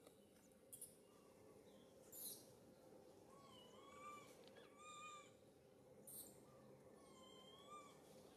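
Several faint, short animal calls, each about half a second and bending up and down in pitch, spaced irregularly, with a few brief hissing noises between them over a faint steady hum.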